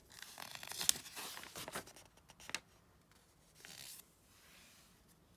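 Glossy magazine pages being handled and turned: a papery rustle and slide with a few sharp crackles over the first two and a half seconds, then a softer swish of a page near four seconds.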